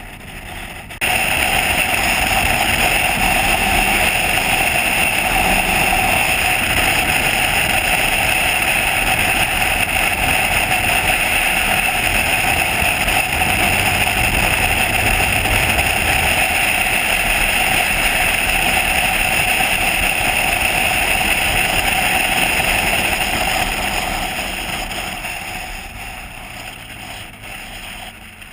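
Motorcycle ride heard from a camera mounted behind the windscreen: a loud, steady rush of wind and engine noise that starts abruptly about a second in and dies down over the last few seconds.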